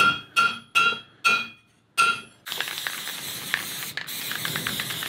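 Five hammer blows on a steel punch against a stake anvil, each with a bright metallic ring. About halfway through, an aerosol can of matte lacquer starts spraying with a steady hiss, in two bursts with a short break near the end.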